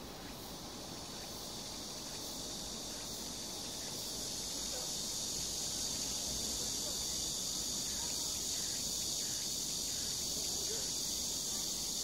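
Cicadas singing in a steady, high-pitched chorus that swells over the first few seconds and then holds.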